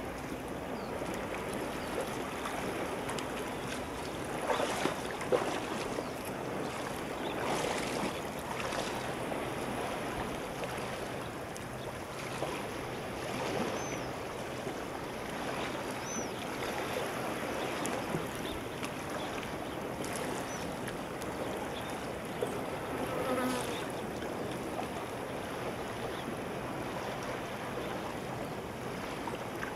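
Steady wash of calm shallow sea water with some wind. Over it come intermittent splashes of gumboots wading out through the shallows, loudest about five seconds in.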